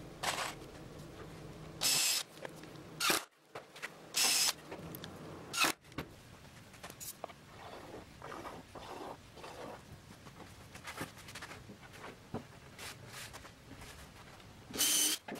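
A cordless drill-driver running in several short bursts, driving screws into plywood. Quieter knocks and scrapes of plywood panels being handled come between the bursts.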